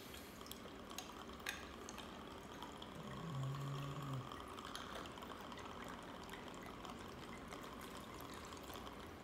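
Orange juice poured into a glass of ice and vodka, a faint steady pour with a few light clinks of ice early on.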